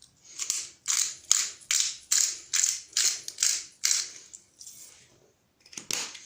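Pepper mill being twisted to grind pepper: a run of short gritty grinding strokes, about two a second, then two slower ones near the end.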